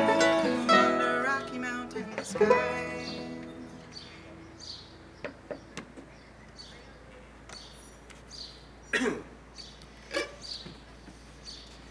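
Bluegrass band of fiddle, guitar, banjo, upright bass and mandolin playing the last bars of a song, ending on a final chord about two and a half seconds in that rings out and fades. Then a quiet outdoor background with faint high chirps about once a second and two short louder sounds near the end.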